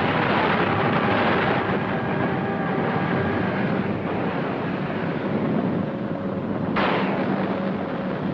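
Sound-effect rumble of fire and explosions, running steadily without breaks as the set burns.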